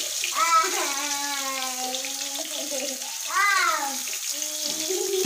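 A sung melody in background music, with long held notes and a swooping phrase about three and a half seconds in, over a steady hiss of chili spice paste frying in a wok.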